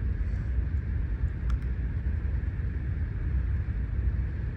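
HVAC unit running: a steady low hum of the compressor and condenser fan.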